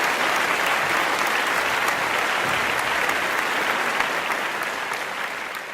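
Audience applauding at the end of a performance, dense steady clapping that begins to fade near the end.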